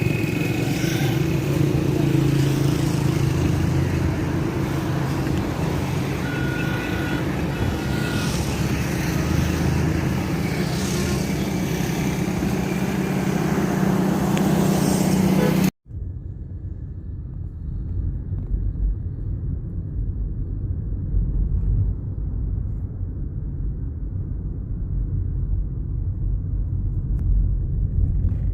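Vehicle engines and road traffic running steadily, with a few short steady tones. About halfway through it cuts off suddenly and is replaced by a dull, low-pitched noise.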